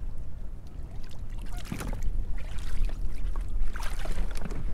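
Wind rumbling on the microphone, with water splashing and sloshing against a kayak in a few short surges, about two seconds in, near three seconds and again near the end.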